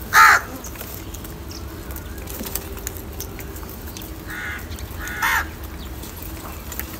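House crows cawing: one loud, harsh caw right at the start, then two shorter, fainter caws about four and a half and five seconds in, over a steady low background rumble.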